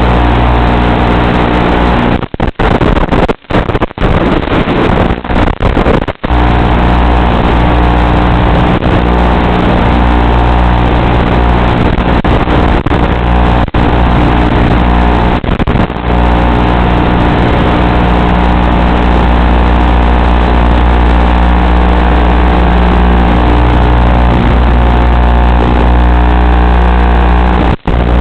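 Electric motor and propeller of an FPV aircraft heard through its onboard camera microphone: a steady, many-toned buzz. The sound drops out abruptly several times a few seconds in and once more near the end.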